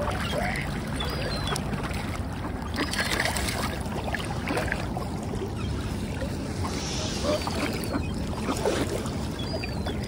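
A crowd of feeding waterbirds (whooper swans, mallards and gulls) paddling, dabbling and splashing in the water at close range, with short bird calls scattered throughout.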